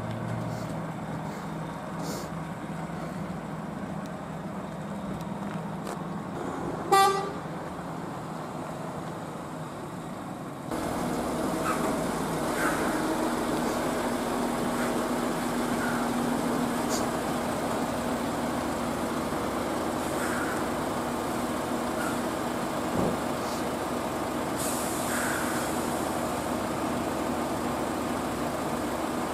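Heavy truck's diesel engine running at low speed as it manoeuvres, with one short vehicle-horn toot about seven seconds in. After about ten seconds the sound turns a little louder, into a steady engine drone with a held tone.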